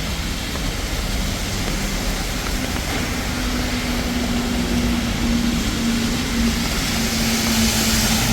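Heavy rain falling steadily on a city street, with a vehicle's engine humming steadily from about two and a half seconds in.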